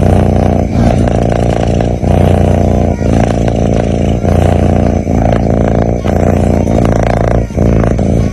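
Sleeping cat snoring loudly: a continuous low, rattling rumble that breaks briefly about once a second as it switches between breathing in and out.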